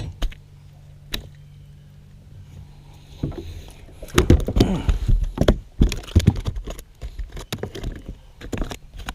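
A steady low hum for about three seconds, after which it stops and a run of knocks, clicks and rattles follows as a freshly caught bass is handled in the boat.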